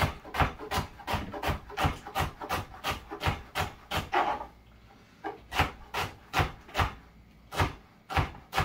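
Kitchen knife chopping fresh celery on a wooden cutting board: a steady run of quick cuts, about four a second, slowing to sparser cuts about halfway through.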